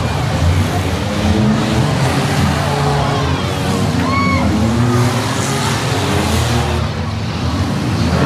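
Several stripped demolition-derby cars' engines running and revving unevenly over the arena. A grandstand crowd talks underneath.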